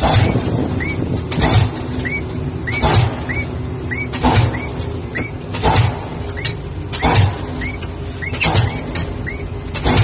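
Pile-driving hammer striking a pile in regular heavy blows, about one every one and a half seconds, over the rig's engine running steadily. Short squeaks come between the blows.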